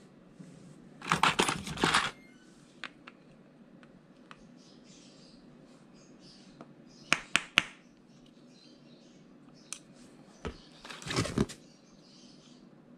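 Metal hand tools (screwdrivers and hex keys) clinking and rattling against each other as they are rummaged through in a cardboard box. There is a cluster of rattles about a second in, three sharp clicks around seven seconds, and another rattle near eleven seconds.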